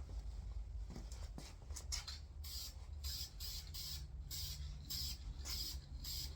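Primer spraying in short hissing bursts, about two a second, beginning a couple of seconds in and fainter before that.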